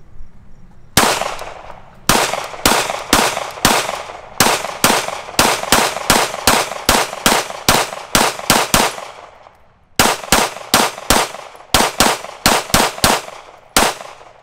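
Glock 19 Gen 4 9mm pistol fired rapidly, about two to three shots a second, in one long string broken by a pause of about a second two-thirds of the way through.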